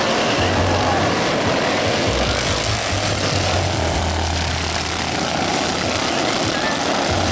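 Racing lawn mower engines running hard, a loud steady drone that shifts a little in pitch.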